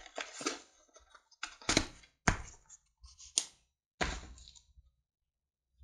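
Handling noises of a small cardboard box holding a battery charger and batteries being packed and closed: a series of separate sharp clicks and knocks.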